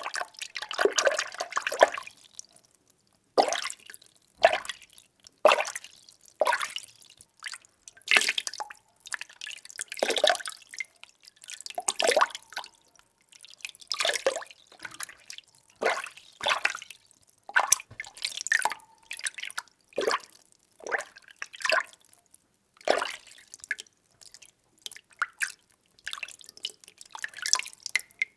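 Water being stirred by hand or utensil in a small container: short sloshing swirls about once a second with brief pauses between them.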